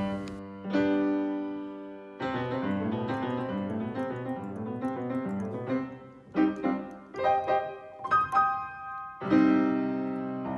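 Grand piano being played: a chord that rings and fades, then a flowing run of quick notes, then several separate chords, ending on a loud chord left ringing near the end.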